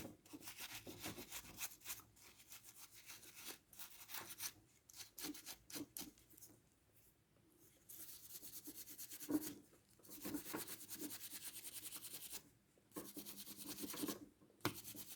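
Faint scratchy brushing of a paintbrush's bristles over a netbook's small cooling fan, quick repeated strokes in several runs with short pauses, scrubbing out the dust and grime that clog it. A single sharp click about nine seconds in.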